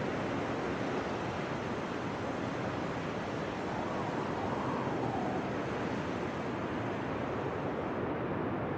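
C-89 smoke grenade hissing steadily as it burns and vents smoke. Near the end, the highest part of the hiss drops away.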